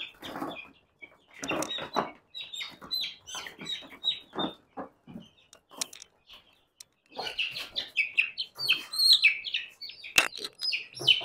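Four-week-old chicks peeping in quick series of short, falling cheeps, thickest in the second half. Rustling and knocks come from the chicks being handled and put into a plastic carrier box, and there is one sharp click near the end.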